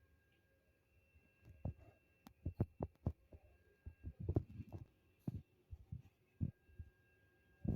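Irregular dull thumps and knocks, bunched most thickly about four seconds in, over a faint steady high hum.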